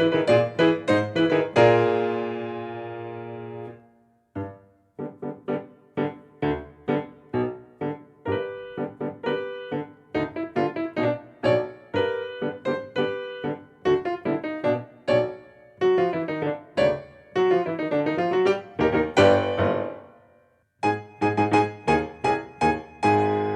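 Solo piano music: quick runs of struck notes and chords that ring on and fade, with two short breaks, about four seconds in and near the end.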